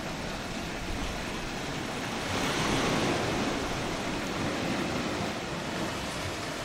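Surf washing over a rocky limestone shoreline, with one wave breaking louder about two and a half seconds in.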